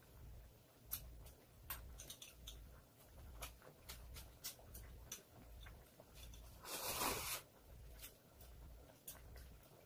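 Faint, scattered clicks and taps of chopsticks and tableware against bowls, with a short scraping rustle about seven seconds in.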